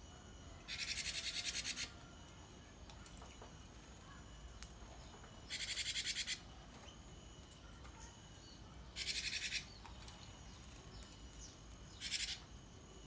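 Caged gelatik batu (cinereous tit) giving four bursts of a rapid, high, buzzing rattle, each about a second long or less, a few seconds apart; the last is the shortest.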